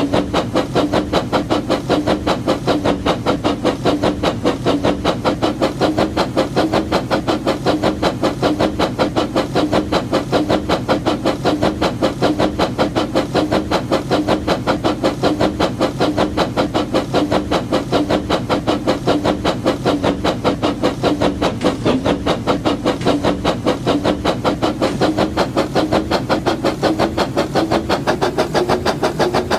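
Labo Brick battery-powered toy train running: a steady motor hum with a rapid, even pulsing, its pitch rising slightly near the end.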